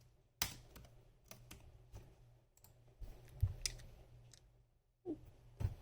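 Scattered light clicks and taps of small objects being handled, with soft thumps about three and a half seconds in and near the end, and a brief squeak about five seconds in.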